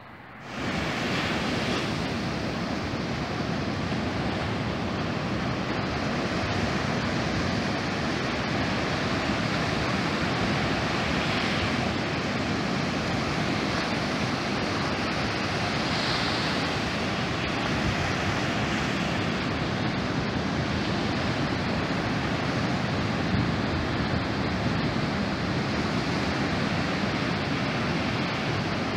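Ocean surf breaking and washing up a sandy beach: a steady rush of waves that comes in suddenly about half a second in.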